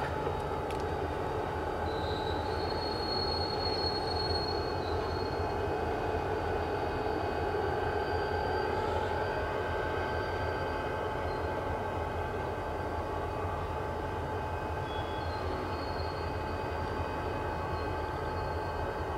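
Grain train of covered hopper cars rolling slowly past, a steady rumble of wheels on rail. Thin high wheel squeals come in a couple of times.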